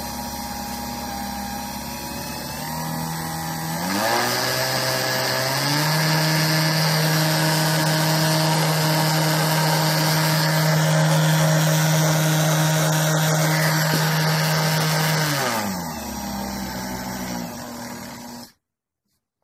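Electric mixer motor spinning a washing-machine pump rigged as a generator, its whine rising in pitch twice as the speed control is turned up, then holding steady at high speed. Near the end it winds down to a lower pitch and cuts off suddenly.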